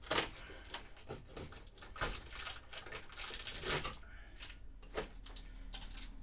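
Fingers picking and prising open a perforated cardboard advent calendar door: an irregular string of short scratches, clicks and small rips of card, the loudest right at the start.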